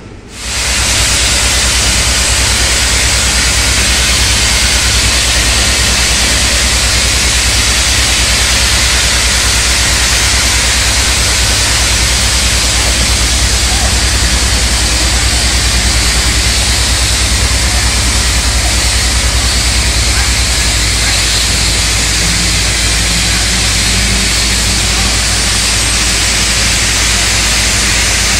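Loud, steady hissing rush of shipyard hull-repair equipment, with a low pulsing hum beneath it; the hum changes about two-thirds of the way through.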